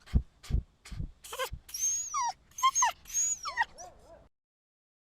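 An animal's high-pitched whining squeals, several short calls that slide down in pitch, after a few low thumps; the sound cuts off abruptly about four seconds in.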